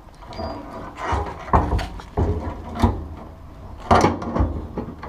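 Irregular scraping, clunking and rattling of an 88-91 Honda Civic fuel pump and sending-unit assembly being worked up out of the gas tank's opening. It is catching on the little clips and wires inside the tank.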